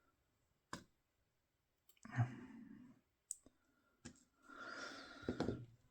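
Handling of a disassembled pin-tumbler padlock's small metal parts: a few sharp, separate clicks and two short stretches of scraping and rustling.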